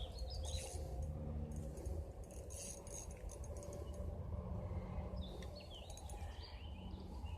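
Faint bird chirps over a steady low rumble of outdoor ambience, with a few faint light clicks.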